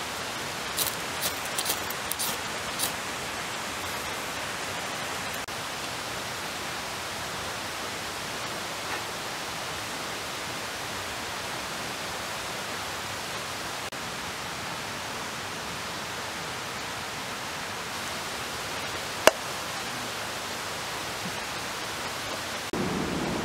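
A few short, sharp knife strokes on wood in the first three seconds as a stick is whittled, over a steady even hiss that runs throughout. One loud sharp click comes near the end.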